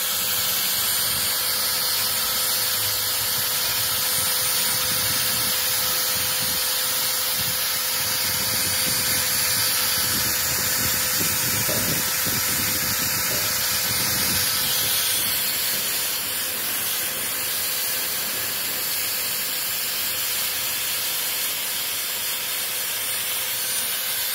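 INGCO electric drill running steadily with a small wire brush bit scrubbing over the spokes of an alloy wheel: a steady hiss over a steady whine, with a slight shift in pitch about halfway through. The brush is stripping flaking old paint off the rim.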